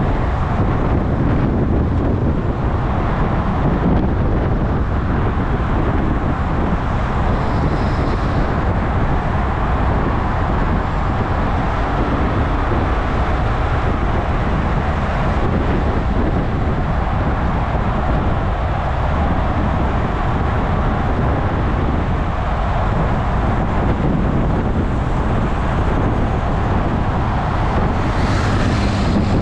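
Steady rush of wind over the microphone on a road bicycle moving at speed, mixed with the noise of car traffic alongside.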